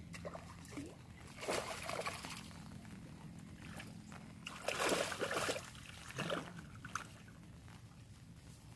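Water splashing in short bursts, one about a second and a half in and a louder one about five seconds in.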